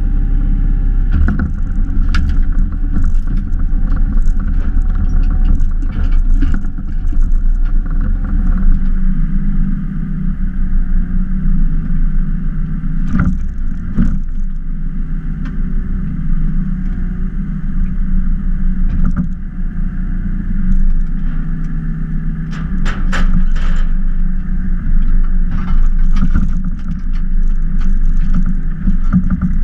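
Hitachi EX22 mini excavator's diesel engine running steadily while working its hydraulic log splitter, with a faint whine that wavers in pitch and scattered sharp knocks, several bunched about halfway through and again a few seconds later.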